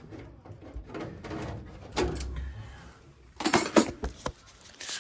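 Handling noises: scattered knocks and rattles of tools and parts being moved, with a louder cluster of clatter about three and a half seconds in.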